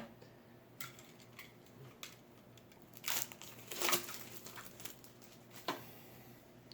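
Board game cards and their packaging being handled: a few light clicks and two short rustles about three and four seconds in.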